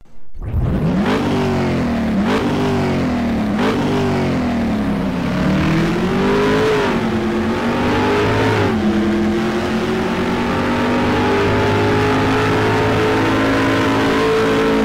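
An engine revving: three quick blips up and down, then a slower rise and fall, then held at a steady high rev.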